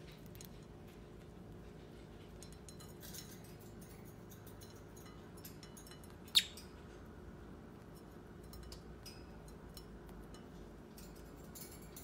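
Budgerigars pecking and nibbling grated carrot on a ceramic plate: faint scattered clicks over a low room hum, with one sharp, brief clink about six seconds in.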